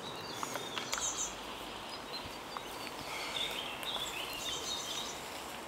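Small birds chirping in woodland over a soft steady hiss, with a few light clicks, as a mountain bike rolls along a dirt trail.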